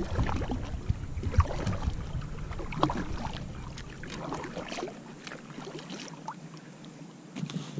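Fishing gear being handled on a kayak: irregular knocks, clicks and clatter, with a low rumble that drops away about five seconds in.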